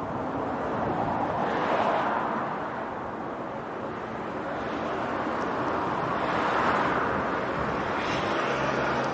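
Road traffic passing, a steady rushing noise that swells and fades several times, with wind on the microphone.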